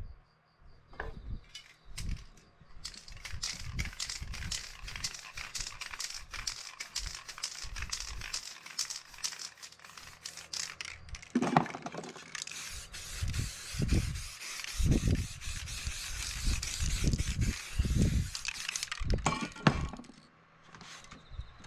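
Aerosol spray paint can hissing in quick back-and-forth bursts from about three seconds in, becoming a longer, steadier spray about halfway through, with scattered dull knocks.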